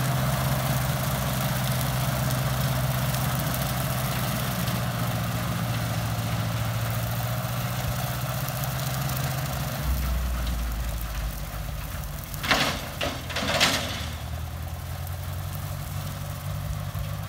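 International 300 Utility tractor's four-cylinder engine running steadily under load while it pulls a rotary mower through tall grass; the engine note deepens about ten seconds in. A few brief loud rushes of noise come about three quarters of the way through.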